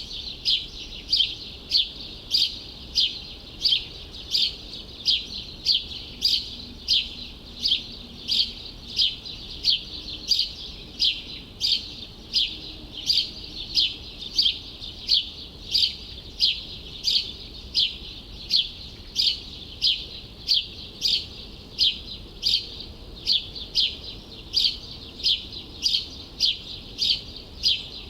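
A bird repeating one short, high chirp over and over at an even pace, a little under two chirps a second, over faint low city background noise.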